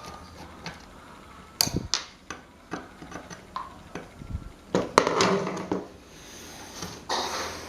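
Irregular knocks and clatter of tools and metal parts being handled and set down, with a few short scraping bursts.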